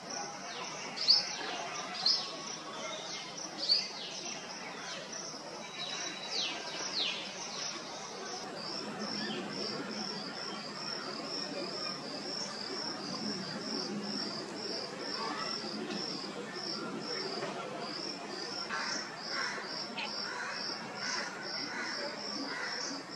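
Outdoor bird and insect ambience: small birds give sharp, high, falling chirps in the first several seconds. From about eight seconds in, a steady high pulsing insect call, about two pulses a second, runs on over a faint hiss.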